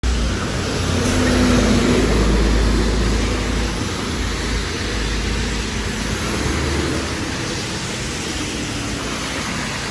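Steady hiss of rain and tyres on a wet city road, with a low rumble of passing traffic that is loudest in the first few seconds and eases after about seven seconds.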